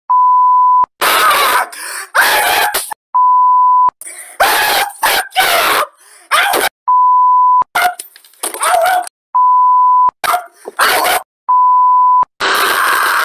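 Five steady one-note censor bleeps, each under a second long, alternating with a man's loud shouting.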